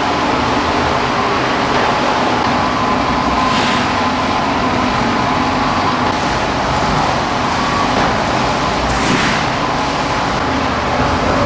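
Horizontal veneer slicer running: a steady, loud machinery noise with a faint hum. There are two short hissing swishes, about three and a half and nine seconds in.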